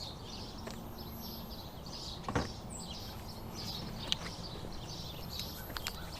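Background of soft high chirps repeating about twice a second, typical of birds or insects, over a steady low rumble. A single sharp click about two and a half seconds in, with a few lighter clicks near the end, from hands handling small parts.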